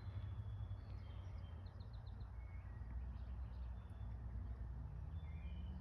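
Small songbirds singing in short high chirps and whistles, with a quick run of five notes about two seconds in, over a steady low rumble.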